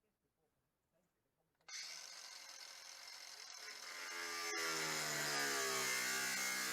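A cordless power tool starts up suddenly about two seconds in and cuts along a line in sheet metal: a steady high hiss over a motor whine whose pitch dips and then climbs again as the cut loads the motor.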